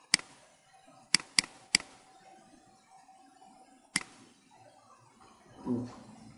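Computer mouse clicks while editing code: a single click just after the start, three quick clicks about a second in, and another near four seconds, over faint background hiss. A short low sound follows near the end.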